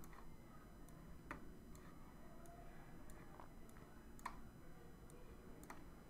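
Several faint, sharp clicks of a computer mouse, spaced about a second apart, over quiet room tone, as straight lines are clicked and dragged in a paint program.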